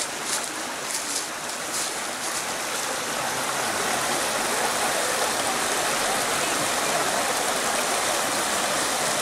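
Running water rushing steadily, like a stream. It grows a little louder after the first couple of seconds.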